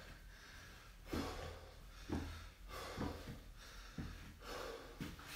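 A man breathing hard after a set of lunges, a series of short, faint exhalations about once or twice a second.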